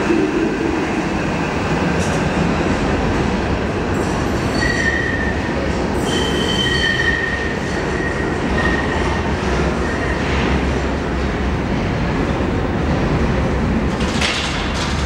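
Budapest Metro Line 1 train pulling out and running off into the tunnel: a steady rumble of wheels on rails, with high wheel squeal from about four seconds in until about nine, and a couple of sharp clicks near the end.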